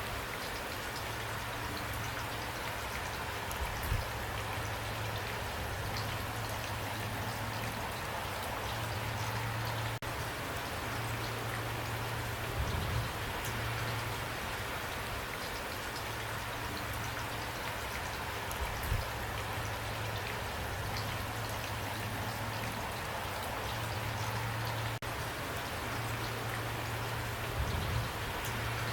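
Steady rain falling, an even patter with a few brief low thumps along the way.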